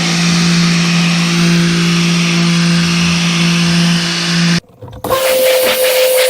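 Pressure washer running, its motor humming steadily under the hiss of the spray on the boat hull. It cuts out for a moment about four and a half seconds in, then comes back with a higher-pitched hum.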